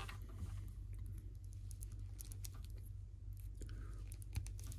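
Small plastic action-figure parts being handled, with faint scattered light clicks as pieces are fitted and removed, over a low steady hum.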